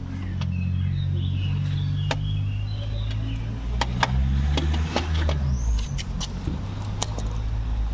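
A string of sharp metallic clicks and knocks from hand tools and the starter motor as it is worked free of a Ford Mondeo Mk3, over a low steady hum.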